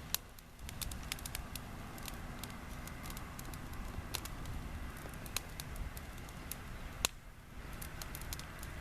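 Burn pile of paper, twigs, leaves and plastic burning, with irregular sharp crackles and pops over a steady low rushing noise.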